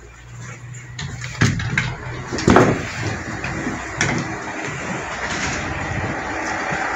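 A Tarumi Railway Hi-Mo 330 diesel railcar idling, its steady engine noise growing louder toward the end. A few sharp knocks come near the start, with a louder thump about two and a half seconds in.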